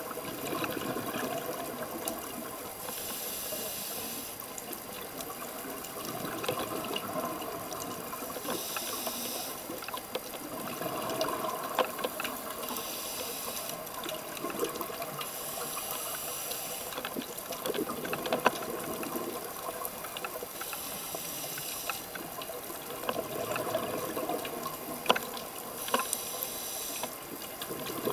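Underwater sound of a scuba diver breathing through a regulator: a hiss on each inhalation every four to five seconds, alternating with bubbling exhalations, with scattered small clicks.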